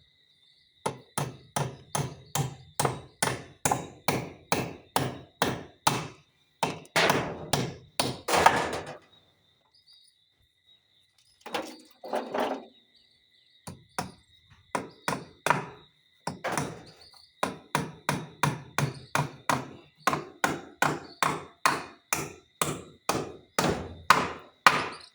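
Hammer driving nails into wood: runs of sharp, evenly paced blows, about two to three a second, broken by a couple of short pauses.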